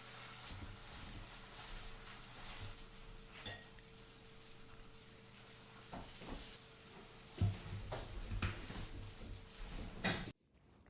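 Faint sizzling of food frying in a pan, with a few light knocks of a utensil against the pan.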